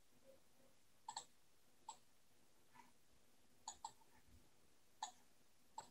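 Near silence broken by about seven faint, short clicks, scattered unevenly, some in close pairs.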